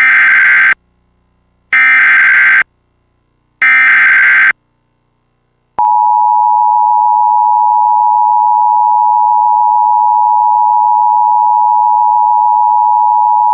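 Emergency Alert System alert tones: three short bursts of SAME header data, each under a second and about two seconds apart, then the two-tone attention signal, a steady dual tone held for about eight seconds and cut off sharply. Together they mark the start of a new alert, here a severe thunderstorm warning.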